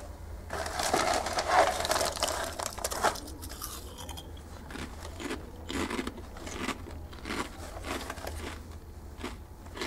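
A person eating Blue Diamond Honey Nut-Thins crackers. A loud crackly rustle of the cracker packaging and the first bite comes about half a second in and lasts a couple of seconds, then short crisp crunches of chewing follow at about one or two a second.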